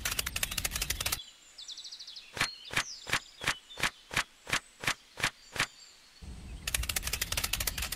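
Fast, dense clicking, then a quieter run of about a dozen evenly spaced ticks at about three a second. Near the end the fast clicking returns.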